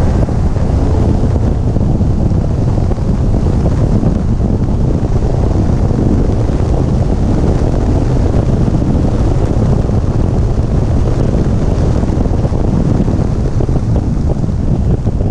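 Loud, steady wind buffeting on a GoPro mounted outside on the rear of a McLaren 650S at speed on a track, a rushing roar that mostly covers the engine.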